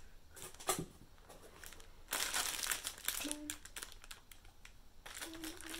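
Plastic packaging of a pack of air-dry clay crinkling as it is handled and turned over. It is loudest about two seconds in and again near the end, with a few light clicks before.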